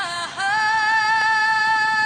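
Music with a high singing voice: a short downward slide, then one long note held steady.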